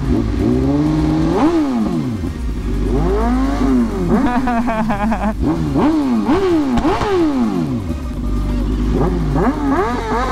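2023 BMW S1000RR's inline-four engine revved over and over, its pitch climbing and dropping back about once a second in a string of throttle blips.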